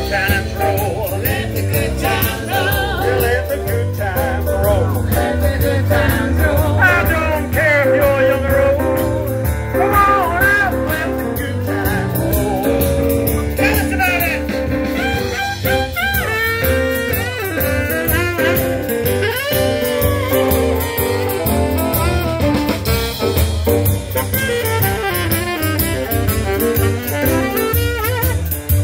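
Swing-style jazz played by a live band during its sound check: a singer with saxophone and brass over a steady beat.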